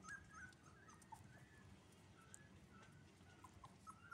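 Faint, scattered high squeaks and whimpers of newborn puppies.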